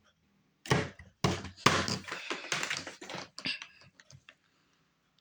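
Plastic clicks and knocks as the Bissell Powerforce vacuum's bag compartment is handled: a quick string of taps and thunks, stopping about four seconds in.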